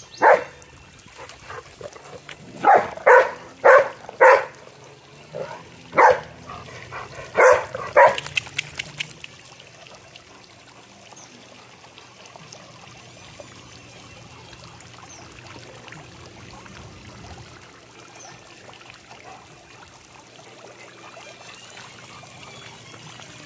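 Golden retriever barking, about eight barks spread over the first eight seconds, the first one on its own and the rest in a loose run. After that only the faint, steady hiss of a splash pad's sprinkler jets is left.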